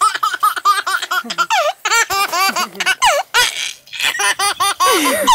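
A small child laughing hard in quick, short, high-pitched bursts, one after another with barely a pause.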